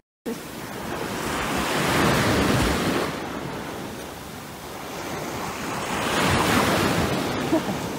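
Surf washing up a beach, swelling twice, with wind buffeting the microphone.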